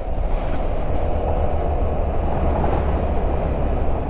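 Steady wind rush on the microphone over the low rumble of a BMW F700GS motorcycle riding along at road speed.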